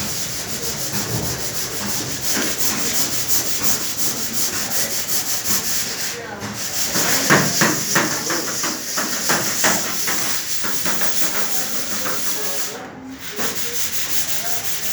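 Rapid, rhythmic abrasive scraping of sanding on the car's metal bodywork during restoration.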